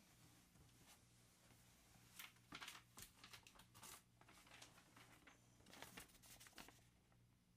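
A paper sign being pulled off the wall and handled: faint tearing and crinkling of paper in two short flurries, one about two seconds in and another about six seconds in.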